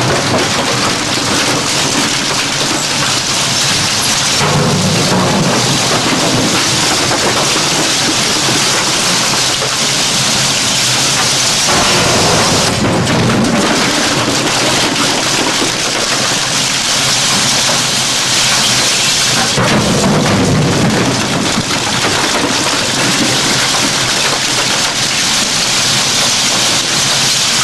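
Industrial rotary shredder's hooked cutter shafts tearing up plastic drums: a loud, dense, continuous crackling and crunching of breaking plastic, its texture shifting a few times as the load changes.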